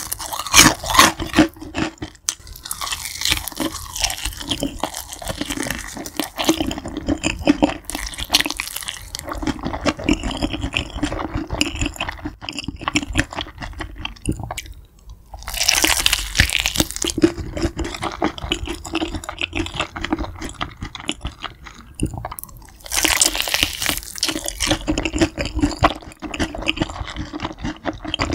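Close-up eating of sauce-glazed crispy fried chicken drumsticks: crunching bites through the battered coating, with moist chewing in between. The loudest bursts of crunching come near the start, a few seconds in, about halfway through and again about four-fifths of the way through.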